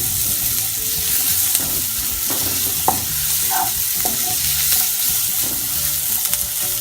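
Chopped onion and garlic sizzling steadily in butter in a pan while being lightly fried, with a few light clicks of the utensil against the pan.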